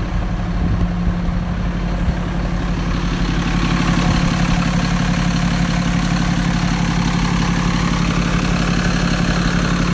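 Diesel engine of a 2009 Freightliner M2 106 truck idling steadily. About three seconds in, as the sound is heard right at the open engine bay, it grows a little louder and hissier.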